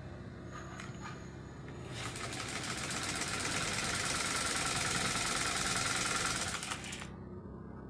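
Black-head Deluxo domestic sewing machine stitching at speed for about five seconds, a fast even clatter that starts about two seconds in and stops abruptly near the end, over a low steady hum. The machine is freshly serviced, with a new hook and tensioner, adjusted and lubricated, and runs without jamming.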